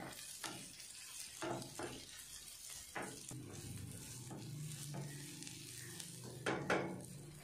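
Softened sliced onions, garlic and dried red chillies frying gently in oil in a nonstick pan, with a faint sizzle. A wooden spatula scrapes and knocks against the pan as they are stirred, a few strokes spaced out and two close together near the end.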